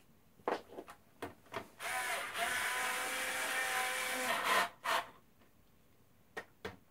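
Electric screwdriver running for about two and a half seconds, driving a Torx T10 screw into an Xbox One's metal shield. Before and after it come a few sharp clicks of screws and the bit against the metal.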